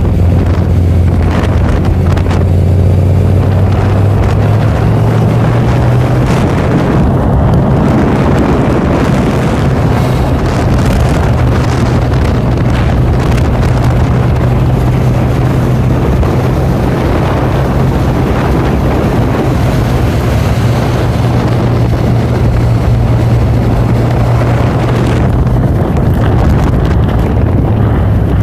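Motorcycle engine running at road speed, heard from the saddle, with heavy wind noise on the microphone. The engine note steps up a few seconds in and drops again near the end.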